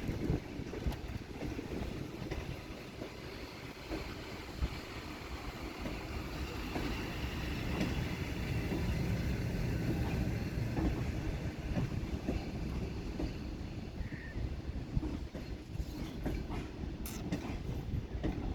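Passenger train cars rolling past on arrival, a steady rumble with wheels clicking over rail joints, briefly louder in the middle.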